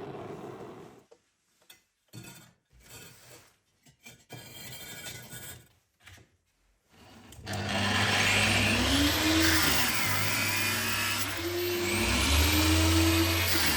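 After a few seconds of faint, scattered workshop sounds, an electric power tool starts up loud about two-thirds of the way in and runs steadily, its pitch sweeping up and down as the speed changes.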